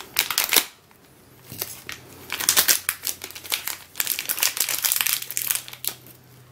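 Plastic packaging crinkling in irregular bursts as a pack of 5 mm magnet balls is unwrapped and handled.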